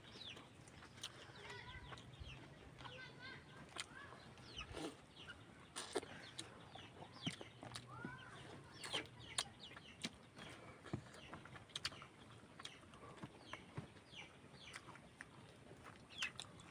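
Quiet eating at a meal: scattered short clicks and smacks of chewing and utensils, with occasional short chirping calls in the background.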